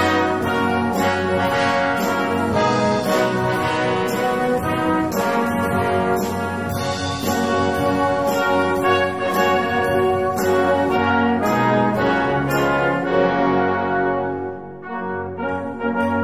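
Brass band music playing, with hands clapping along on the beat; near the end the music drops briefly before coming back in.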